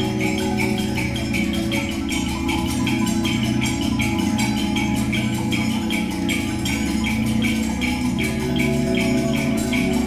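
Percussion ensemble playing: marimbas and other mallet instruments improvise overlapping rhythmic patterns over a steady fast pulse, forming a constant stream of notes. Held low notes sound beneath and shift near the end.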